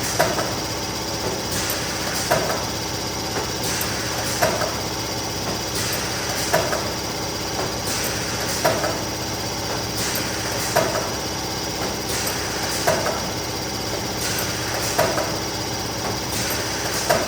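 Neoram 540 hot laminating machine running with a steady mechanical hum, and a sharp knock repeating evenly about every two seconds as it works through a stack of sheets.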